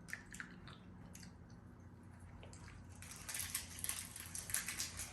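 Someone chewing a soft pistachio toffee, faint wet mouth clicks, with a denser run of small crackling clicks starting about three seconds in.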